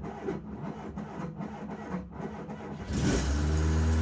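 Fiat 238 van engine cranking on its starter motor from a newly fitted battery, with even compression beats about three times a second. It catches about three seconds in and settles into a steady low running drone.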